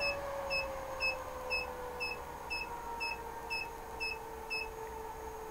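DC electronic load beeping an alarm, short high beeps about two a second, after tripping its input off on its minimum-voltage limit. Underneath, a faint steady hum slowly falls in pitch.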